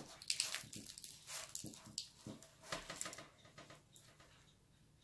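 Crisp, flaky baked spinach börek pastry crackling as it is broken and torn apart by hand, a quick run of small crackles that thins out after about three and a half seconds.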